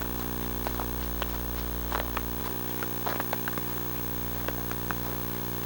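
Steady electrical buzz with many overtones from the Hi8 Sony Handycam's audio, loud throughout. Over it come scattered soft crunches of footsteps in snow.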